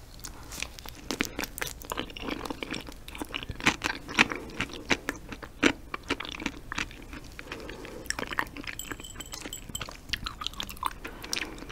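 Close-miked chewing of raw yellow stingray liver, with many short mouth clicks scattered throughout.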